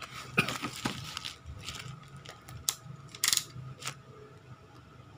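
A bubble-wrapped parcel and a utility knife being handled: a series of separate clicks and light knocks, the loudest a little past the middle, with faint rustling of the plastic wrap.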